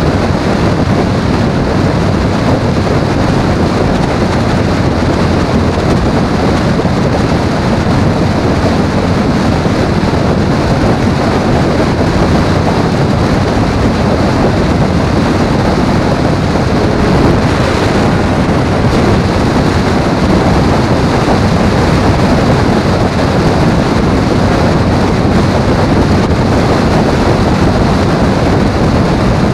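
Steady, loud wind rush buffeting the microphone, mixed with engine and road noise from a vehicle travelling at road speed.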